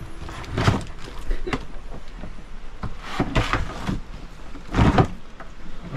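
Shoes being shuffled in a plastic storage crate and the crate slid under a bench seat: a few bursts of rustling, scraping and knocking.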